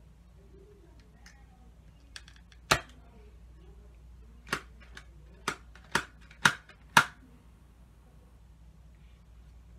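Sharp plastic clicks from a handheld toy blaster: one loud click a little under three seconds in, then five more about twice a second over the next few seconds.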